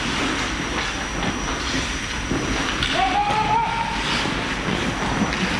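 Hockey skates scraping and gliding over rink ice during play, a steady rushing noise with no clear strokes.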